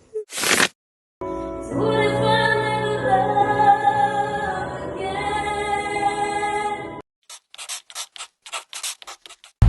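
A short whoosh, then a held sung 'aah' note with a slight vibrato, about six seconds long, in a choir or opera style. Near the end comes a quick irregular run of about a dozen short sharp clicks.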